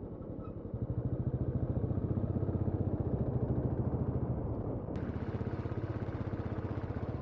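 Motorcycle engine running steadily under way, with a fast, even exhaust beat. It gets louder about a second in, and a hiss joins about five seconds in.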